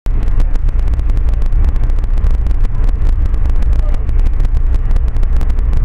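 Steady low rumble of an Amtrak passenger train running along the track, heard inside the moving car, with a rapid irregular crackle on top.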